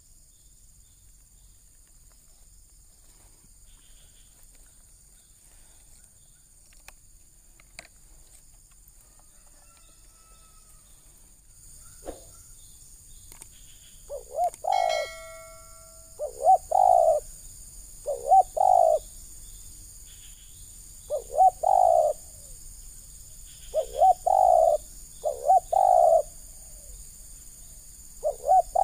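Spotted dove cooing, about halfway in, after a stretch of faint hiss: repeated short phrases of two or three notes, a phrase every two to three seconds.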